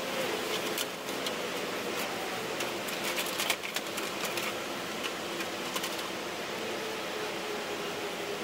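Light, irregular clicking and crackling as gloved hands work resin-wet fiberglass cloth onto wood, in clusters through the first six seconds. Under it runs a steady hiss with a faint hum.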